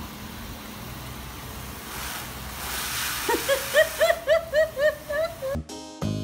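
Car-wash pressure wand spraying water against a car's side window, a steady hiss that swells about halfway through. From about three seconds in, a small child laughs in a quick run of about eight rising-and-falling squeals. Piano music cuts in near the end.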